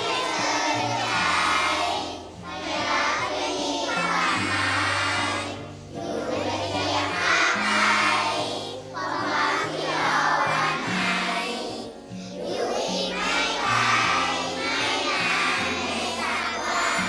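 Upbeat pop-style theme song with group singing over a stepping bass line, fading out at the very end.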